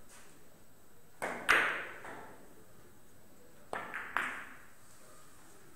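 Billiard shot on a carom table: sharp clicks of cue and balls striking, with the loudest, ringing click of ball hitting ball about a second and a half in, then a quick cluster of three more clicks near 4 s as the balls hit again.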